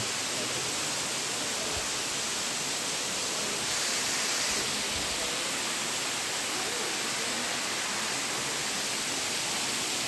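Waterfall rushing, a steady, even noise.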